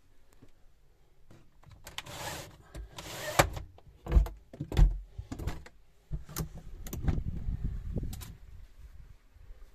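Hinged motorhome window being unlatched and pushed open on its stays. Plastic rubs and slides, the latches and frame click and knock, and several heavy thumps come about four to five seconds in.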